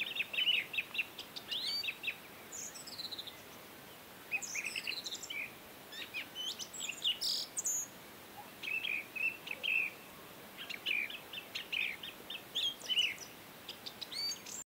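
Birds chirping and singing: quick series of short, high chirps and sweeping whistles with brief pauses between them. The sound cuts off abruptly near the end.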